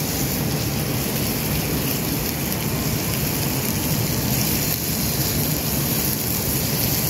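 Chicken pieces sizzling on a flat stone heated over a wood fire: a steady, even hiss.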